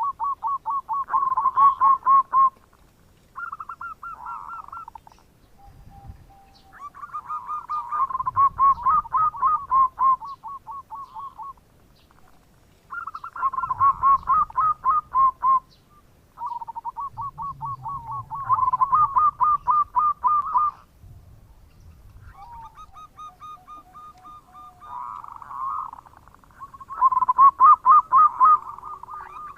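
Zebra dove (perkutut) cooing its bekur song: about six phrases of quick, stuttering coo notes, each a few seconds long and separated by short pauses.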